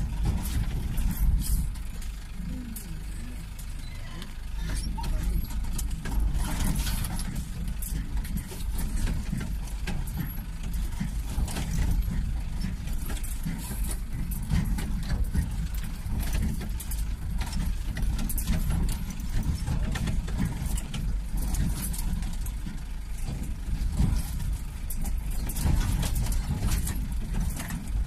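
Nissan tipper truck driving over a rough, rocky dirt track: a steady low engine rumble with frequent knocks and rattles as the truck jolts over the ruts.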